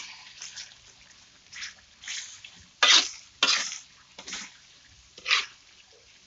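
Spatula stirring sliced chillies, tomato and shallots in a wok: a string of short scraping swishes, about six of them, over a faint sizzle of frying oil.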